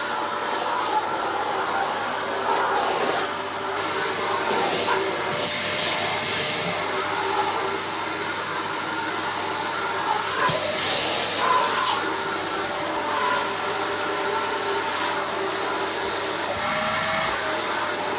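Kärcher WD 3 wet-and-dry vacuum cleaner running steadily: a loud, even rush of air with a faint whine that wavers slightly in pitch.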